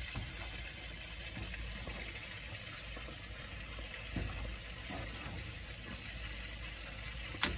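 A pot of instant noodles simmering on a gas stove while a wooden spoon stirs them, with a steady wet bubbling. A sharp knock near the end.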